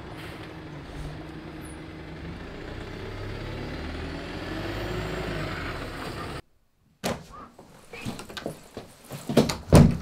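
A London single-decker bus running past, a steady engine and road noise with a brief rising-and-falling tone, which cuts off abruptly a little after six seconds. After a short silence come a string of short knocks and handling sounds, the loudest just before the end.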